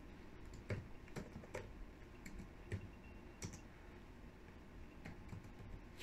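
A few faint, irregularly spaced clicks of computer keyboard keys, with pauses between them.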